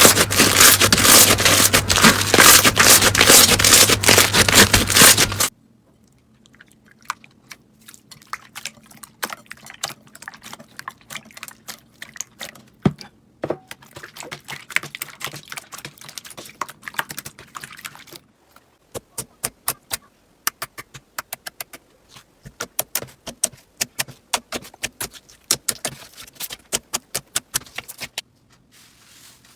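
Hands squeezing and pressing slime: a loud, dense crunching crackle for the first five seconds or so, then quieter sticky clicks and pops as other slimes are poked and stretched.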